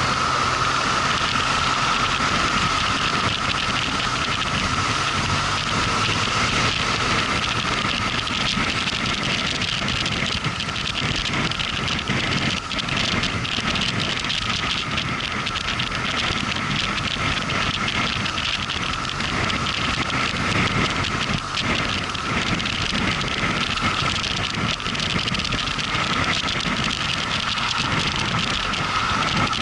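Motorcycle under way: a steady rush of wind and road noise with the engine running underneath, loud and unbroken throughout.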